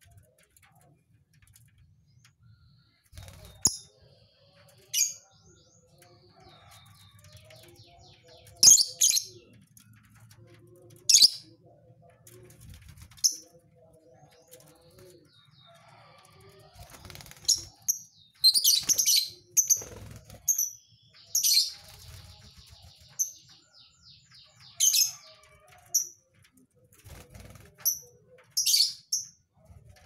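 Lovebirds calling: sharp, high-pitched chirps scattered through the first half and coming thick and fast in the second, with quieter fast chattering trills between them.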